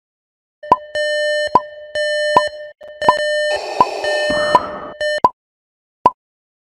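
Electronic alarm sound: a steady beeping tone with a sharp tick about every 0.8 s. It turns noisier about halfway through, cuts off abruptly a little after five seconds in, and one lone tick follows.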